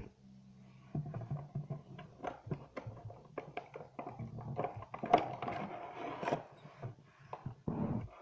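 Stiff clear plastic blister packaging of an action figure being handled and worked free: irregular crinkling, crackling and clicking of the plastic, busiest about four to six seconds in.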